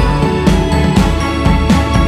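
Background music with sustained notes and a regular beat.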